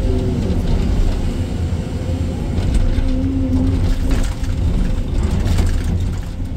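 Sany SY305 excavator's diesel engine and hydraulics running under work, a steady deep rumble with a hum that swells briefly in the middle, and a few light knocks.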